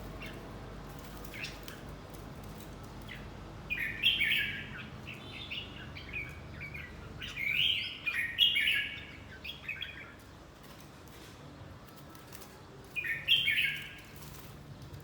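Red-whiskered bulbul singing short warbled phrases, in three main bursts about four, eight and thirteen seconds in, with a few single chirps between.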